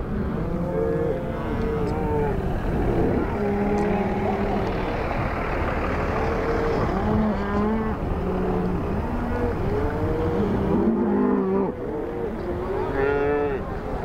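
A herd of cattle, cows and calves, mooing constantly as they are driven along, many calls overlapping one another, over a steady low rumble.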